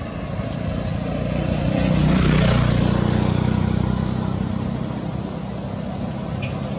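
A motor vehicle's engine hum passing by, swelling to a peak about two and a half seconds in and then easing to a steady drone.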